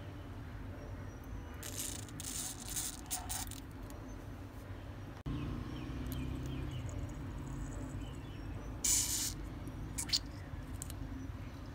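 Plastic syringe squirting and clicking as liquid is injected into a cell of a sealed lead-acid battery to restore it, over a steady low hum. There are two short hissy spells, one about two seconds in and a briefer one near nine seconds, then a couple of sharp clicks.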